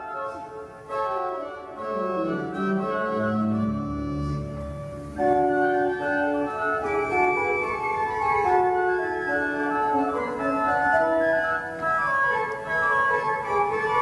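Background organ music: sustained chords with a slow melody on top, deep bass notes coming in about two seconds in, and the music growing louder about five seconds in.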